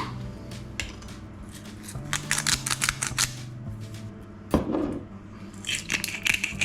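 Hand-twisted salt and pepper grinder being turned: a run of quick gritty clicks, a single knock about four and a half seconds in, then another short run of grinding near the end. The grinder is giving out little, so the cook is about to take its lid off.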